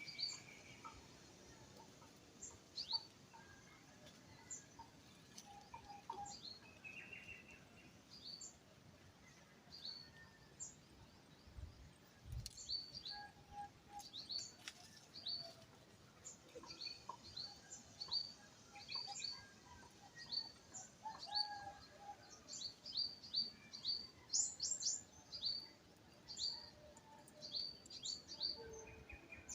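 Small birds chirping: many short, sharp high chirps from several birds, growing busier in the second half, with a couple of brief buzzy trills, one at the start and one about seven seconds in.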